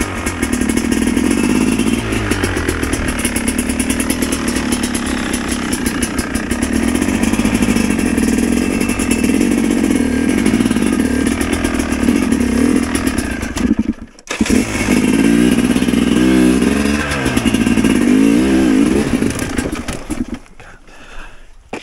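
Enduro dirt bike engine running and being revved up and down as it is warmed up again after cooling. The sound breaks off for a moment about fourteen seconds in, and drops away near the end.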